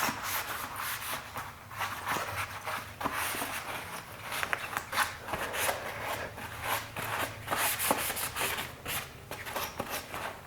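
Cloth wiping a motorcycle's plastic body part clean with wax and grease remover, a run of quick, irregular rubbing strokes.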